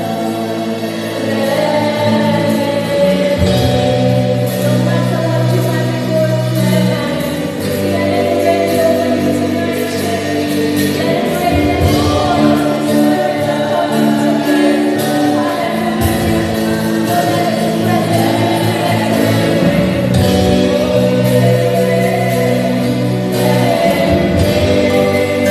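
Gospel worship song: voices singing with a congregation over keyboard and bass, held chords changing every few seconds.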